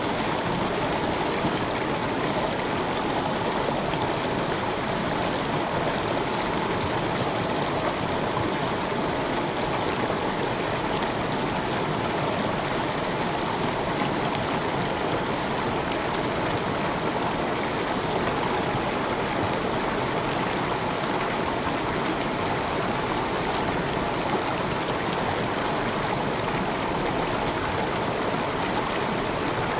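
A shallow river stream flowing steadily over stones, an even rushing and babbling of water.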